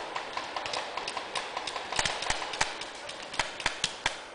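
Paintball markers firing: an irregular string of sharp pops, a few a second, over a steady hiss.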